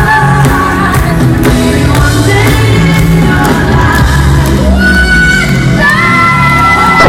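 Live pop-rock concert: a female lead singer holding long, sliding notes over a full band with bass and drums, with shouts from the crowd mixed in.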